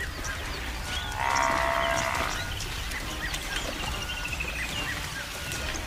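African buffalo bellowing in distress once, starting about a second in and lasting over a second, while lions are attacking it. Short bird chirps and a brief trill sound in the background.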